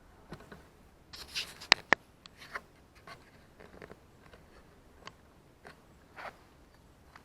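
Close handling noise: rustling and scraping, with two sharp clicks about a quarter second apart a little under two seconds in, the loudest sounds here.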